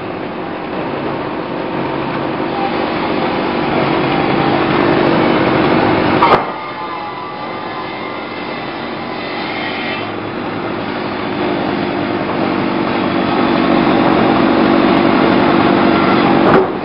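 Gasoline chainsaw running at high speed, cutting into an ipe hardwood log. The noise builds steadily, drops abruptly about six seconds in, then builds again.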